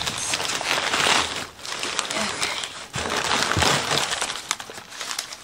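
Newspaper and bubble wrap packing crinkling and rustling as it is handled and pulled apart, in two stretches with a short lull in the middle.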